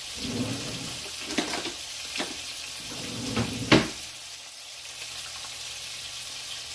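Hamburger patties frying on a griddle, a steady sizzling hiss from the hot fat. About three and a half seconds in, a sharp knock stands out above the sizzle.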